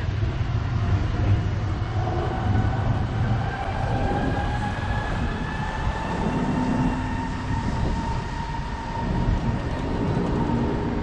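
Electric tram pulling away, its traction motors giving a whine that rises slowly and steadily in pitch, over a low rumble.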